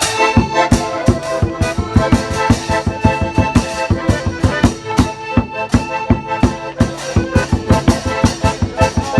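Live dance music: held, reedy chords over a fast, steady drumbeat.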